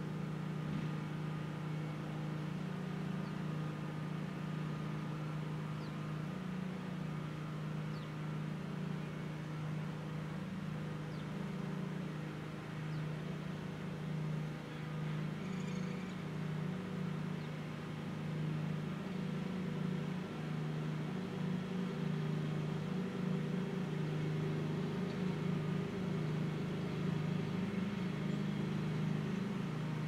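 Darley STH-10 dual-tone mechanical outdoor warning siren sounding a steady alert tone. It holds a low pitch with a slight waver.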